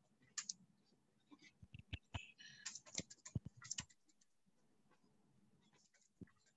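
Faint, irregular clicks of a computer keyboard being typed on, most of them in the first four seconds.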